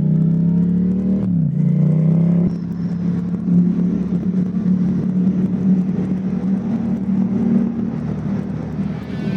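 Motorcycle engine accelerating with its pitch climbing, dropping briefly about a second in at a gear change, climbing again, then holding steady at cruising speed under a rushing noise.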